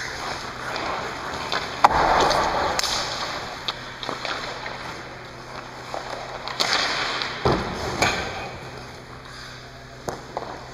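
Hockey skate blades scraping and carving on the ice, with several sharp clacks of a TPS R8 stick on the puck, the loudest about two seconds in, and a single low thud about seven and a half seconds in, all echoing around an empty rink.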